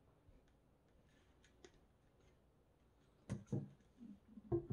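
Small objects handled on a tabletop while trail-camera battery contacts are cleaned: a few faint clicks, then a pair of soft knocks about three seconds in and another near the end.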